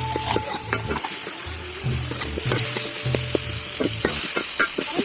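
Food sizzling in hot oil in a pan while being stirred, with the spoon scraping and clicking against the pan many times.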